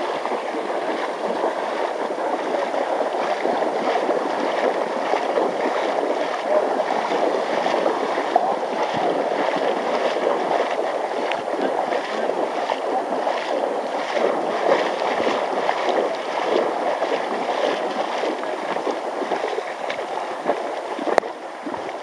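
Shallow river water sloshing and splashing around wading legs over the steady rush of a fast riffle. A brief click comes near the end, after which it is a little quieter.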